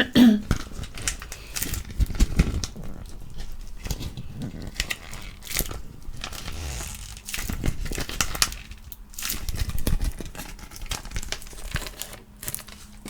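Irregular crinkling and crumpling, many short crackles coming in uneven bursts.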